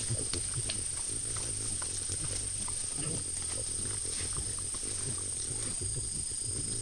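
White-lipped peccaries grunting low while they feed, with short clicks and crackles of chewing and rustling among fruit and leaf litter. A steady high whine sounds throughout.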